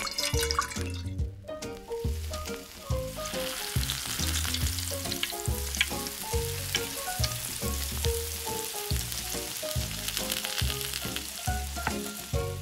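Hot oil sizzling and crackling as sausage pieces fry in a small metal wok, the sizzle building up about three seconds in. Background music with a steady bass beat plays underneath.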